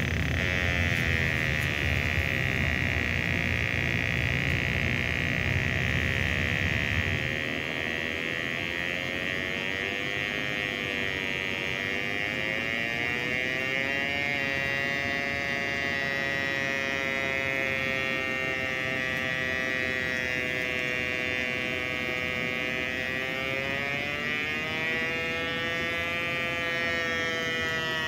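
Electronic combustible gas leak detector giving a continuous buzzing tone whose pitch wavers up and down as its probe is held at the furnace's gas control valve, sounding the gas leak found there. A low hum underneath stops about seven seconds in.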